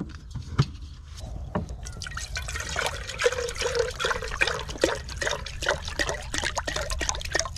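Water poured from a plastic bottle into the metal pot of a gas canister camp stove, trickling and splashing steadily. A couple of sharp knocks sound in the first second or two.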